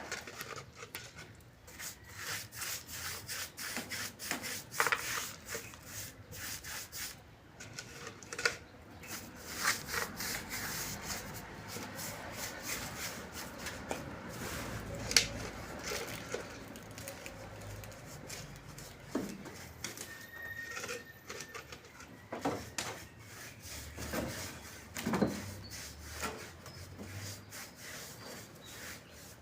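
Irregular scraping and rubbing of manual construction work, broken by sharp knocks now and then.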